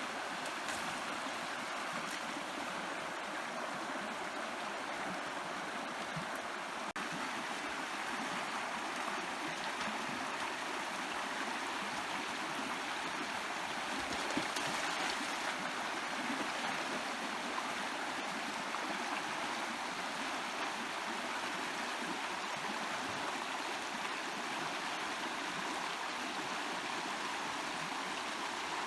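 Stream water flowing steadily, an even rushing.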